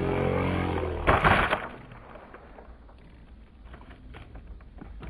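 Radio-controlled model plane's engine droning steadily in a dive, cut off about a second in by a loud crash as the plane hits the ground; then only faint rustling and small ticks.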